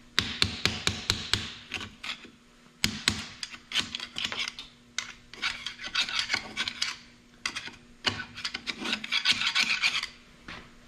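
Hand tool scraping and picking soot-covered carbon and corrosion out of a 12-valve Cummins cylinder head, in quick rasping strokes and clicks that come in several flurries with short pauses between them. The deposits have a layer of soot on them and are coming out easily.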